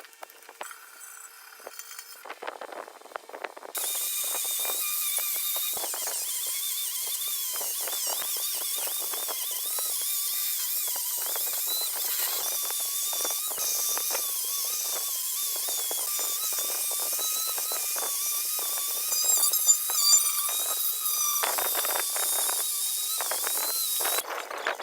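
A power tool running steadily on the car's metal, with a loud hiss and a faint whine that wavers in pitch. It starts about four seconds in and stops just before the end.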